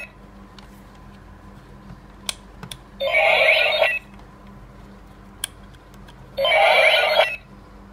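DX IXA Knuckle toy playing a short ringing electronic sound effect through its small speaker, twice, each about a second long and a few seconds apart. A sharp plastic click comes just before each one.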